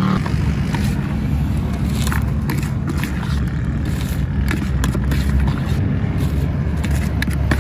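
Steady low rumble of street traffic, with scattered light clicks and scrapes from a metal spoon and a newspaper cone being handled in a plastic bowl.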